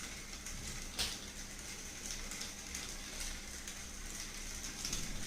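Faint crackling, rustling noise with scattered light ticks and one light knock about a second in.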